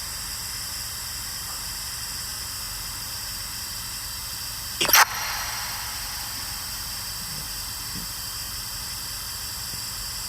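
Steady static-like hiss, with one brief, loud sudden sound about five seconds in.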